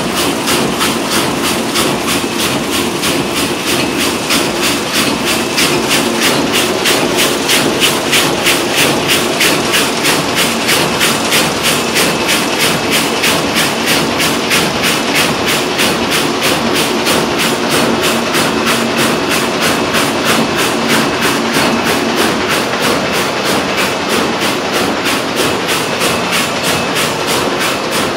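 Van de Wiele VTR33 carpet weaving machine running at speed: a loud, steady mechanical clatter of rapid, evenly spaced beats as the loom weaves.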